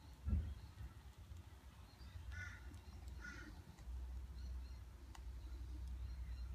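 Low rumble and handling noise as the opened geared hub motor is turned by hand, with a bump about a third of a second in. Two short, harsh animal-like calls come about a second apart in the middle.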